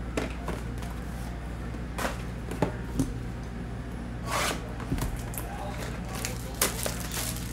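Plastic shrink wrap being cut and pulled off a cardboard trading-card box: a few sharp taps and clicks, a brief tearing rip about four seconds in, then crinkling plastic. A steady low hum runs underneath.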